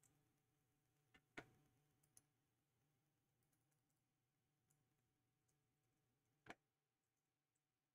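Near silence broken by a few faint computer mouse clicks: two close together a little over a second in, and one more about six and a half seconds in.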